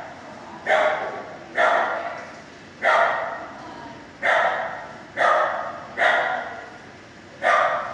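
A dog barking about seven times, roughly once a second, each bark echoing off the hard kennel walls.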